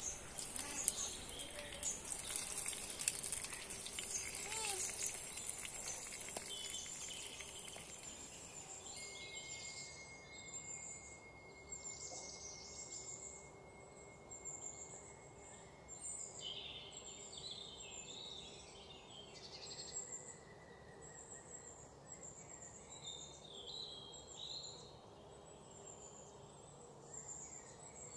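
Tomatoes frying in hot oil in a small clay pot, hissing and crackling for the first several seconds. After that, birds chirp and call repeatedly, with a thin steady whistle for about ten seconds in the middle.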